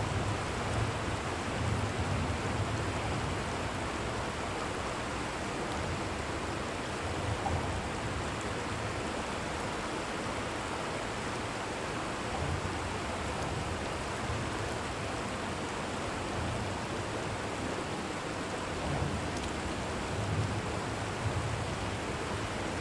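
Shallow river running over rocks: a steady rushing hiss of water, with low rumbles coming and going.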